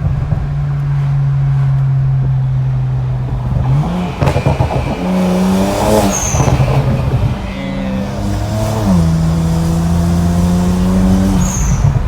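BMW 335i's turbocharged straight-six with catless downpipes, driving under load. A steady drone is followed by revs climbing about four seconds in, a drop, and revs climbing again to a steady pull near nine seconds.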